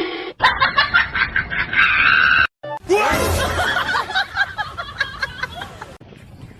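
Music, broken by abrupt cuts about two and a half seconds in and again near the end.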